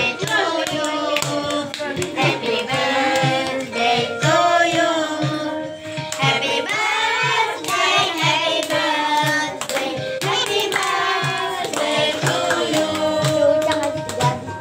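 Voices singing a birthday song together, with hands clapping along in a steady beat.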